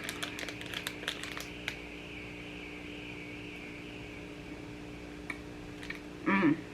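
A quick run of small clicks and crinkles for the first second or two, then a steady room hum. A short hummed voice sound comes about six seconds in.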